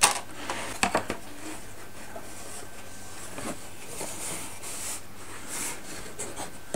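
Thin wooden pieces being handled and test-fitted against a wooden model boat hull frame: a sharp wooden knock at the start and a couple of light clicks just before a second in, then soft rubbing and brushing of wood on wood with small ticks.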